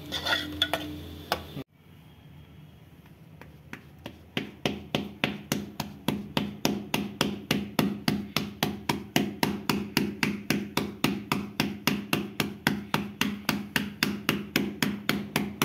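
Jowar roti dough being patted flat by hand on a board: quick, even slaps at about four a second, getting firmer after a few seconds.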